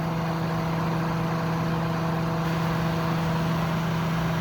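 Kenmore dehumidifier's refrigeration compressor running with a steady hum, under the loud, even rush of the unit's fan.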